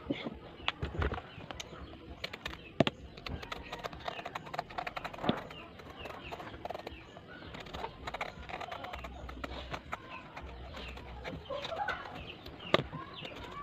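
Scattered sharp knocks of a knife on a wooden chopping board as a patola (sponge gourd) is cut and peeled, over a background of clucking chickens and chirping birds.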